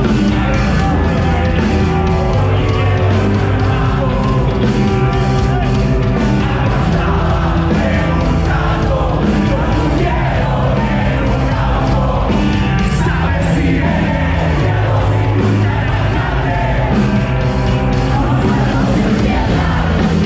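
Rock band playing live: loud, dense sustained chords over a bass line and a steady drumbeat.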